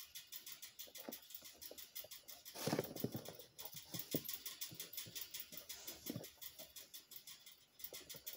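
Pet rat moving about out of sight: a fast, even run of light clicks with scattered soft thumps and rustling, loudest about three seconds in.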